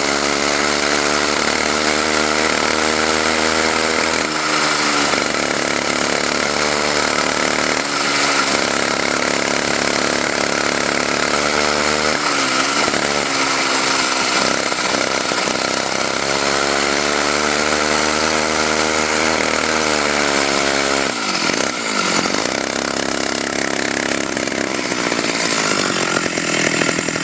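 Two-stroke chainsaw engine driving a homemade motorized bicycle, running loud and continuously, its pitch shifting up and down several times as the throttle changes.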